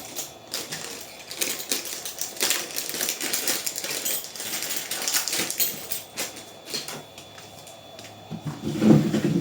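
Rapid, irregular clicking and rattling of small hard parts being handled while a hot air gun nozzle tip is fetched, lasting about seven seconds. A man's voice starts near the end.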